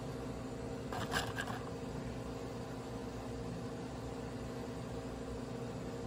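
Steady low mechanical hum, with a brief scraping rustle about a second in.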